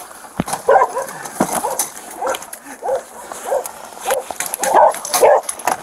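A captured feral dog, held on a catch pole, barking and yelping in about six short calls. Sharp knocks from handling the pole, the strongest about half a second in.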